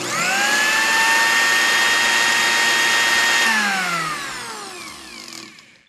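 A small motor spins up quickly to a steady high whine and runs for about three seconds. It then winds down, falling in pitch and fading over the last two seconds.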